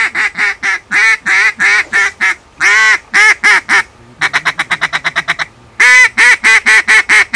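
A mouth-blown duck call sounding a long series of loud quacks, then a fast chatter of short notes, then more quacks: a hunter calling ducks toward the decoy spot.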